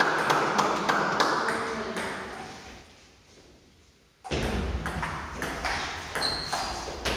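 Table tennis ball clicking sharply off the table and rubber bats in doubles play. The sound fades almost to nothing about three seconds in and cuts back abruptly after four seconds, with more ball clicks as a rally goes on.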